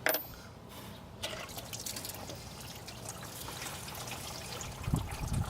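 Engine coolant trickling and dripping out of the opened thermostat housing and hose, with scattered small clicks and a couple of low thumps near the end.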